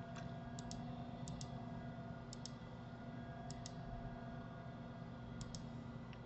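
Left mouse button clicked five times, each click a quick double tick of press and release, spaced unevenly, over a faint steady hum.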